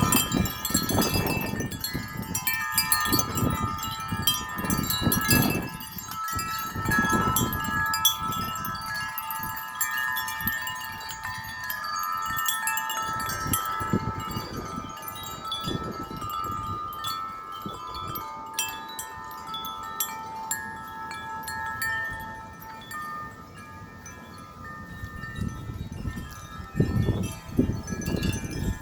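Several wind chimes ringing without pause in strong, gusty wind. A low rush of gusts swells near the start and again near the end, and the chimes ease off for a few seconds a little past the middle.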